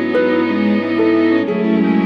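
Background music made with GarageBand: bowed strings playing a melody of held notes that change about every half second.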